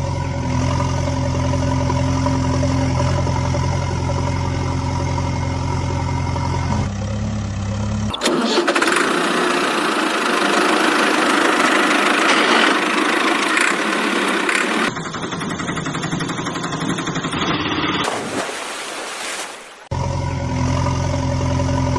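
An engine running steadily at a low, even pitch, broken in the middle by several seconds of loud rushing, hissing noise, after which the engine sound returns near the end.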